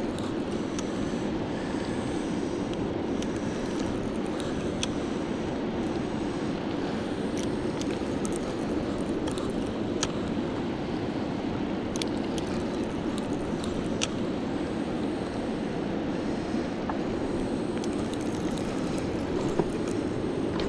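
Steady rushing of fast river current flowing out below a dam, with a few faint clicks.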